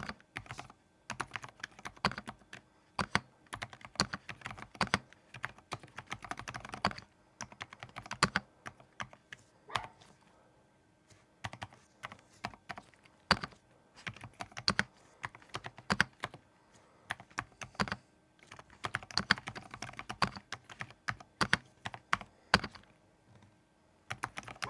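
Typing on a Keychron V6 Max full-size mechanical keyboard: runs of rapid keystroke clicks broken by short pauses, with a couple of gaps of a second or so.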